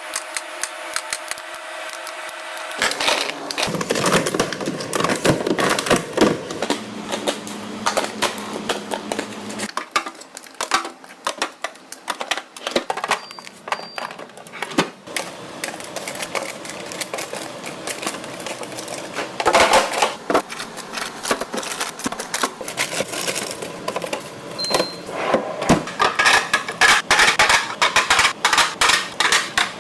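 Kitchen items and containers being handled and set down: a long run of small clicks, taps and clatters.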